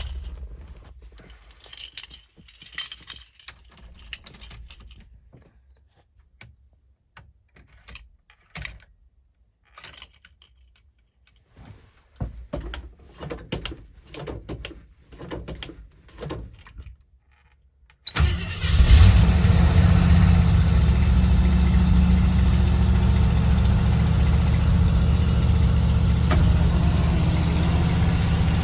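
Scattered light clicks and rattles, then about eighteen seconds in the 1986 Jeep Grand Wagoneer's AMC 360 V8 starts and settles into a steady idle.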